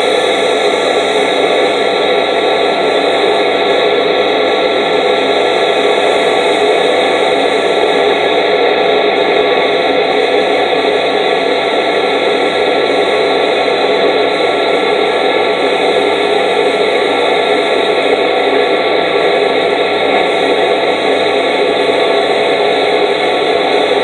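Vacuum cleaner running steadily as its hose nozzle sucks up ants from the paving: a loud, even rush of air with a steady motor whine.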